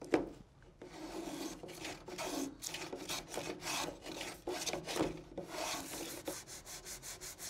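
Shoulder plane cutting a scrap-pine patch on a drawer front, run along a straight-edge guide: a knock as it is set down, then a series of scraping strokes. In the last second or so the strokes become quicker and shorter.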